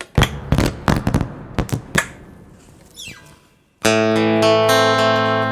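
Handling noise of a few sharp knocks and clicks, then about four seconds in a thinline acoustic-electric guitar is strummed, its chord ringing on.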